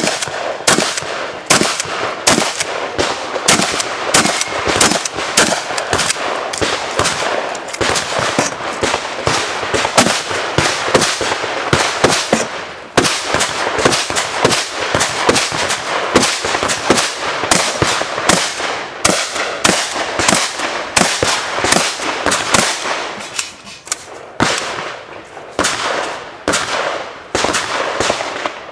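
Benelli Supernova pump-action shotgun firing a long, fast string of loud shots during a competition stage run, with short lulls about halfway through and again near the end.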